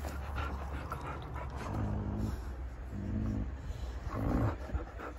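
Alaskan malamute vocalising in three short, low whines about two, three and four seconds in, over a steady low rumble.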